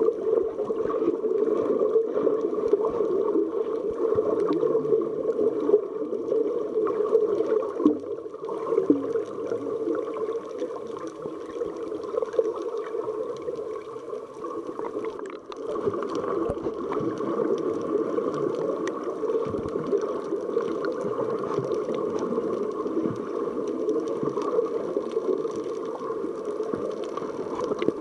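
Water sound picked up by a submerged ContourRoam2 action camera: a steady, muffled gurgling rush, with scattered small clicks.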